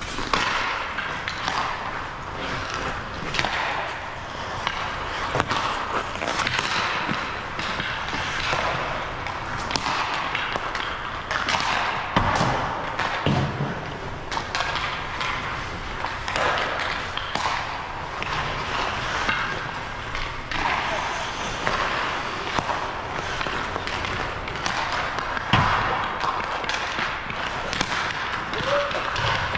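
Ice hockey session: a steady scrape of skate blades on ice with frequent sharp clacks of sticks and pucks and occasional heavier thuds against the boards. Voices are in the background.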